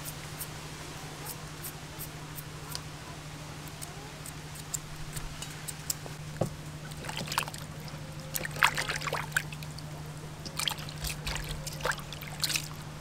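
Faint ticks of a knife shaving thin slices off a carrot, then from about halfway, hands squeezing and sloshing shredded red cabbage in a steel bowl of water, with splashing and trickling. A steady low hum runs underneath.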